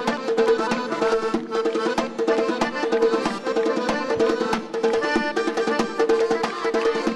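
Traditional folk dance music: a steady drum beat under a repeating melody on melodic instruments.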